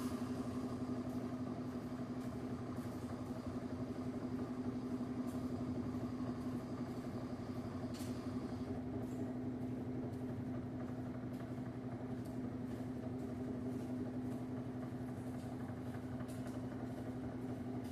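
LG Turbo Drum washing machine running its spin cycle: a steady motor hum from the turning drum.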